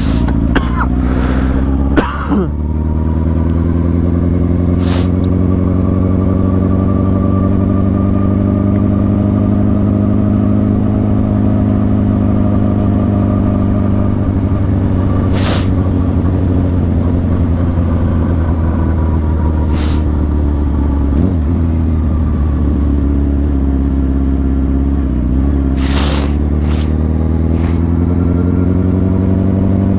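Motorcycle engine running at a steady cruise. Its pitch eases down slightly through the middle and rises again near the end, with a few short sharp ticks scattered through.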